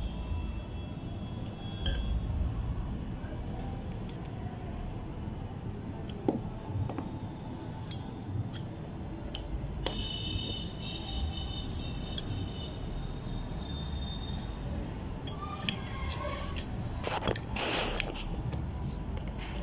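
Steel wrenches clicking and scraping on a brass ball valve as it is gripped and worked to unscrew its body, with scattered sharp metallic clicks and a louder scrape near the end.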